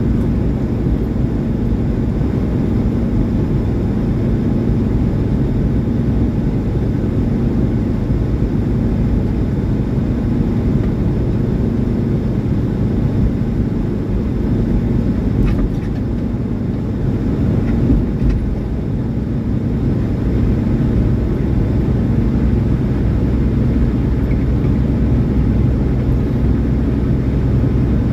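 A semi truck's diesel engine and road noise at steady cruising speed: a constant low drone with a steady hum, and a couple of small knocks about halfway through.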